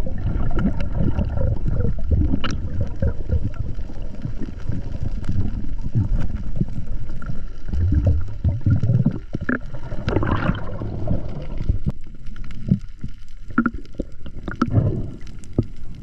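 Muffled underwater water noise from a diver swimming: a low, uneven rumble and gurgling, with a few sharp clicks.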